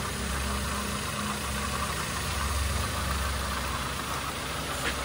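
A freshly overhauled Toyota Avanza four-cylinder engine idling steadily, with no knock. It has new piston rings and connecting-rod and main bearings and is being broken in. A single faint click comes near the end.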